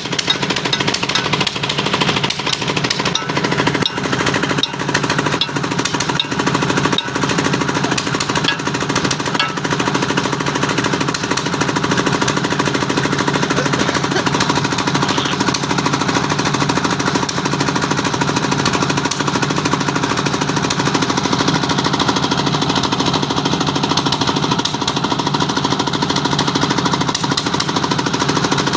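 Heavy machinery running steadily: an engine hum under a fast, continuous hammering rattle that does not let up.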